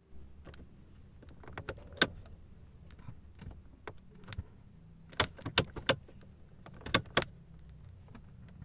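Keys jangling and a series of sharp clicks as the ignition key of a Mercedes W117 is turned, with no engine cranking: the car won't start, a fault traced to its weak battery.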